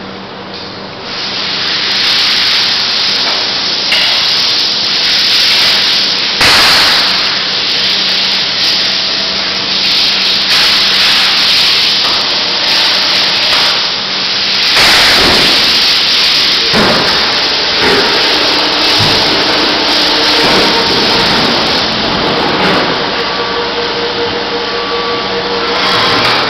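EAZE OFF heavy-duty power hide puller stripping the hide off a hanging beef carcass: a loud, steady tearing hiss, starting about a second in, as the hide peels away and winds onto the roller. A low hum from its electric motor and gearbox runs underneath until about halfway.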